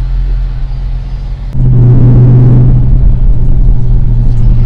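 Dodge Charger R/T's 5.7 L HEMI V8, fitted with a new cold air intake, running with a steady low drone, then about a second and a half in suddenly getting much louder as the throttle opens, and holding there.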